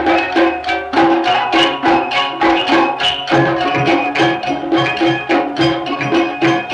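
Film soundtrack music with a fast, even beat of pitched percussive strikes, about four to five a second, over held notes.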